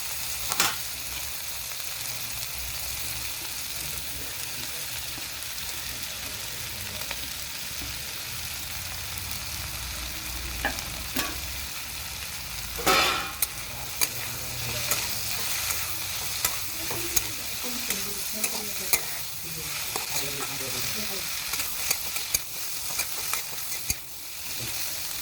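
Onion and capsicum frying in hot oil in a pan, sizzling steadily as they are stirred, with sharp clinks and scrapes of the stirring utensil against the pan, more of them in the second half.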